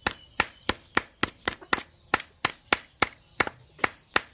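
Small hatchet chopping notches into the edge of a metal spoon handle resting on a wooden block, cutting saw teeth: a steady run of sharp metal-on-metal strikes, about three a second.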